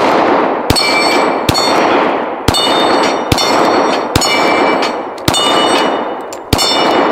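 Glock 23 Gen 5 pistol in .40 S&W fired about seven times, roughly one shot a second. Each shot is followed by the clang and ring of a struck steel plate and a long echo.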